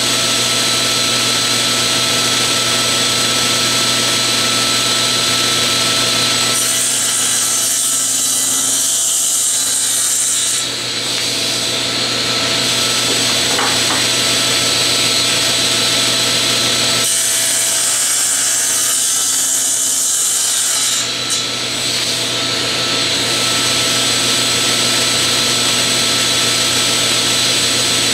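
General 350 cabinet table saw running steadily at full speed, ripping a thick wooden mallet blank. Two cuts about four seconds long, starting about six and seventeen seconds in, add a loud hiss over the motor's hum.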